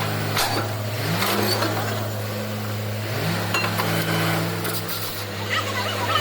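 Borewell drilling rig's diesel engine and compressor running steadily, with a second engine tone that rises in pitch twice and light metallic clinks.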